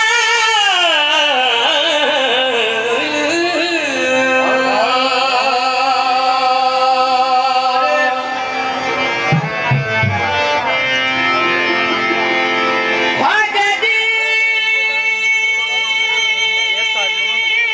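Devotional singing with instrumental accompaniment: a voice holding long, wavering notes, with a slow downward slide in pitch near the start, over steady held tones.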